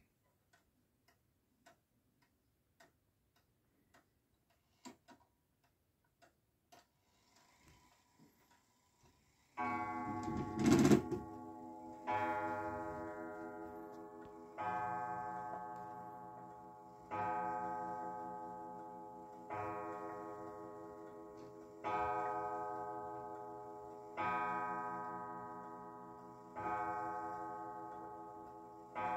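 Antique Philipp Haas & Söhne pendulum wall clock, faint ticking at first, then about ten seconds in it starts a slow, drawn-out strike: nine ringing blows in all, one about every two and a half seconds, each note dying away slowly before the next. A sharp knock sounds just after the first blow.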